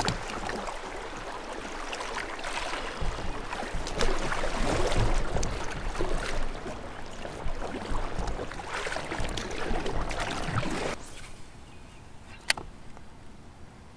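Kayak paddle strokes splashing through river water, an irregular wash of splashes that stops about eleven seconds in. After that it is quieter, with one sharp click.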